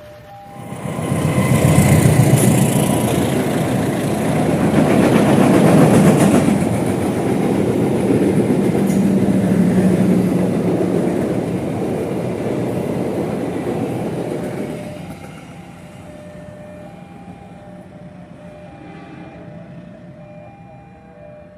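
Train passing at close range: its noise sets in suddenly about a second in, stays loud, and falls away about fifteen seconds in.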